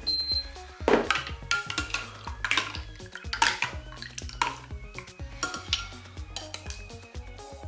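Cutlery stirring and clinking against dishes, with about eight sharp, irregular clinks, over background music.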